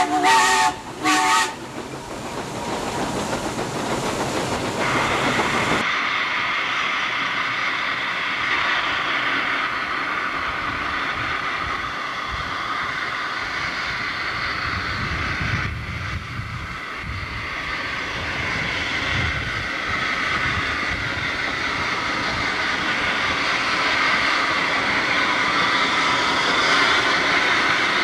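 Steam cog locomotive's whistle ending in two short toots, followed by loud hissing steam. After that comes a steady rushing noise of the train working, with some low rumble in the middle.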